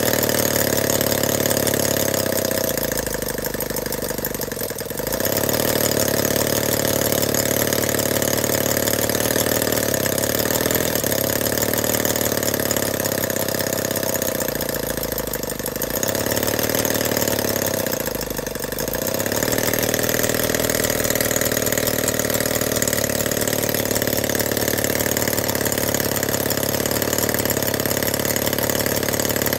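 Holt 75 scale model 12cc four-cylinder water-cooled engine running steadily, its speed sagging and picking back up twice as the throttle linkage is worked.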